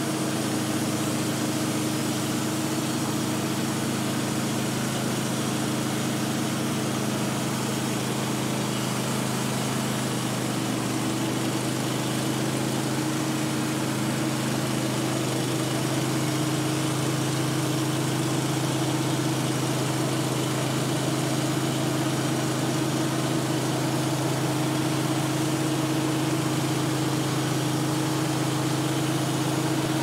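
Wood-Mizer LT15 Wide band sawmill running steadily, its band blade cutting through a large white oak log with an even, unchanging drone.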